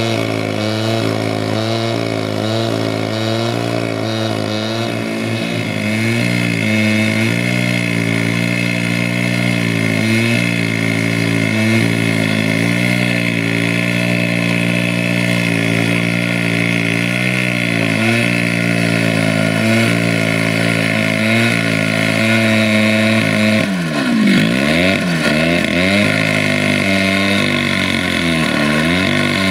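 Stihl two-stroke cut-off saw running at high revs, its abrasive disc grinding through a steel rail. Near the end the engine speed rises and falls several times.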